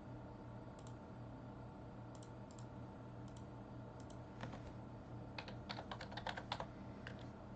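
Computer keyboard typing: a few scattered single clicks, then a quick burst of about ten keystrokes a little past halfway, over a steady low hum.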